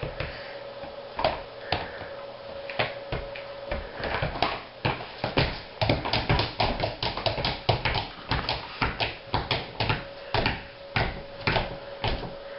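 A toddler's shoes knocking against a wooden ledge as she swings and kicks her legs: scattered taps at first, then quick irregular runs of knocks from about four seconds in.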